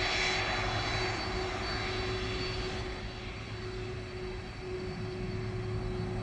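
Jet engines of a Boeing 747 freighter running steadily at low taxi power: a continuous high whine over a low rumble.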